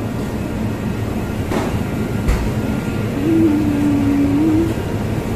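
Steady low rumble of road traffic, with two faint knocks and a single steady tone lasting about a second and a half in the middle.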